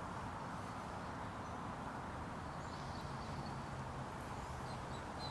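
Steady rushing outdoor background noise with a low hum underneath, and a few faint, short high chirps in the second half.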